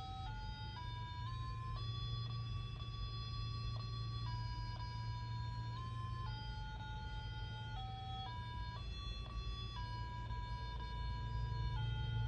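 Pocket talking calculator's built-in alarm melody: a slow electronic beep tune, one pure note at a time, each held from about half a second to two seconds, over a steady low hum.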